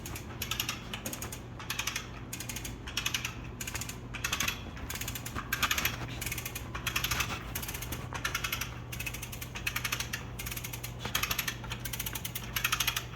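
A hand ratchet being cranked in repeated strokes, each stroke a short run of rapid clicks, coming about every three-quarters of a second. It is working a jack to push a locomotive sideways on greased tie plates.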